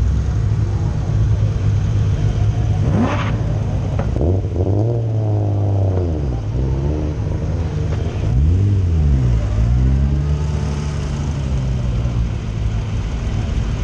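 BMW E30's engine idling, then revved up and back down several times as the car moves off, each rise and fall lasting about a second. A brief high rising whine sounds about three seconds in.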